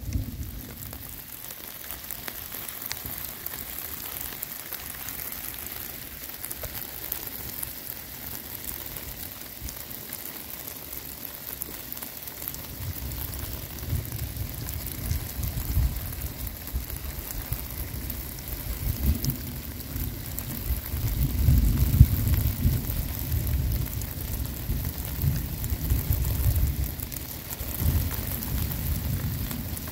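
Steady rain hissing on the river and sand. From about halfway in, an uneven low rumble comes and goes on top of it, loudest a little past two-thirds of the way through.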